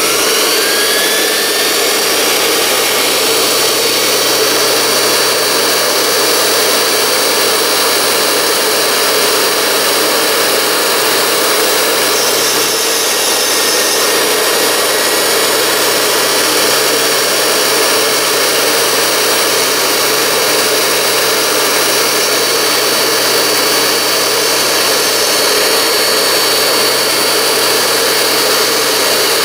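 Dumore toolpost grinder and lathe motors switched on: a whine rising over the first second, then a loud, steady high-speed running hiss and hum as the grinding wheel is dressed with a diamond nib.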